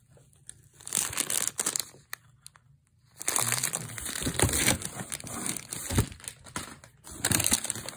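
Plastic snack wrappers crinkling as the packages are handled and shuffled: a short burst about a second in, then steady crinkling from about three seconds in.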